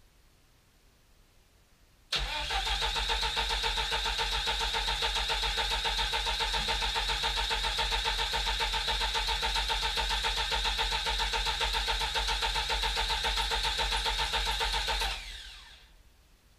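The 1992 VAZ 21053's 1500cc carburetted four-cylinder engine spinning: it comes in suddenly at full loudness about two seconds in and holds a steady, fast-pulsing mechanical run with a high whine for about 13 seconds. It then stops, winding down over about a second with a falling whine.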